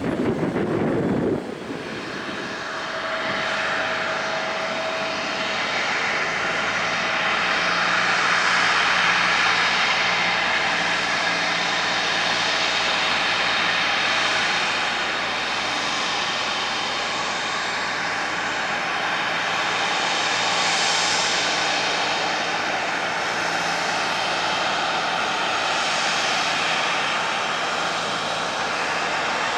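Jet engines of a FedEx Airbus A300 freighter on its landing arrival: a continuous rushing jet noise whose tone sweeps slowly up and down. A short loud blast of low noise comes in the first second or two.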